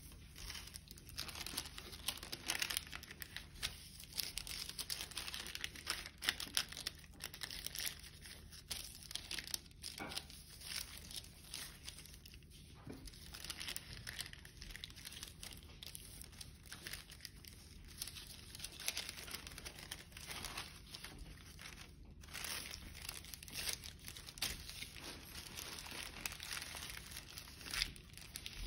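A sheet of paper being folded and creased by hand, with irregular crinkling and rustling as fingers run along the folds and press them flat against the tabletop.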